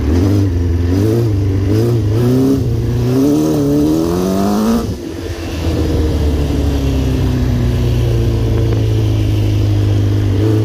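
Kawasaki 400cc four-cylinder motorcycle engine in a quad bike, revving under riding load: the pitch wavers with the throttle, climbs for a couple of seconds, and drops off sharply about five seconds in. It then runs on steadily with its pitch slowly falling, and picks up again near the end.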